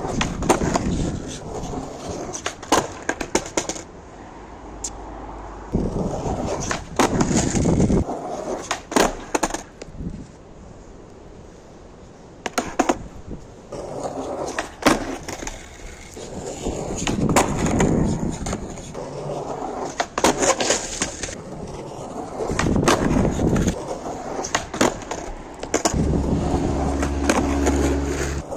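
Skateboard wheels rolling over rough asphalt in several runs, with sharp pops of the tail striking the ground and clacks of the board landing as ollies are attempted. A vehicle engine hums low near the end.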